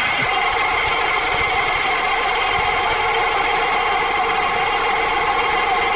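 Car engine idling steadily, heard close up under the hood, with the running noise of a failing alternator that is not charging the battery. The mechanic takes its noise for a broken bearing, with the rotor off centre and rubbing on the housing.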